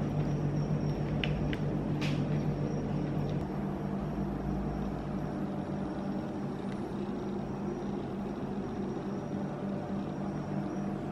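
Steady low electrical hum of a kitchen appliance, with a faint high whine above it. A few light clicks of a fork against the plastic tray come about one to two seconds in.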